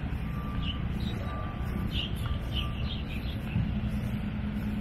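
Steady low engine rumble, with a short electronic beep repeating about once a second in the first half and a few bird chirps in the middle; a steady low hum sets in near the end.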